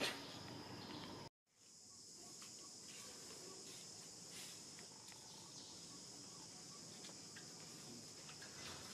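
Steady high-pitched drone of insects, with a few faint chirps scattered through it. A brief louder sound comes right at the start, and the sound cuts out completely for a moment about a second and a half in.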